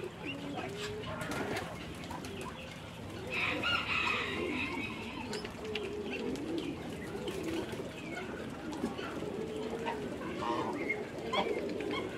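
A flock of domestic ducks, mostly Muscovy ducks, giving a continuous chatter of low, wavering calls while they feed, with a louder, harsher call about three seconds in.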